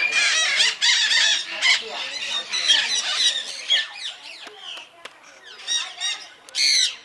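A mixed flock of parrots and cockatoos squawking and screeching, many harsh calls overlapping at once. The din thins out after a few seconds, with one short loud squawk near the end.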